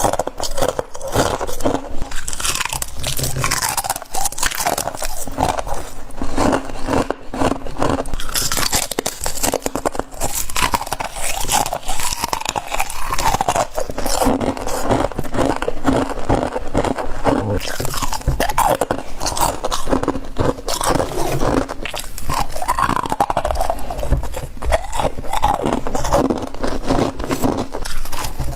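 Close-up biting and chewing of frost, a steady run of dense, crackling crunches.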